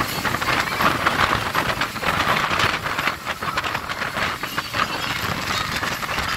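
Motorboat running at speed: a steady, rough rush of engine, wind and spray, broken by irregular knocks as the hull slaps the waves.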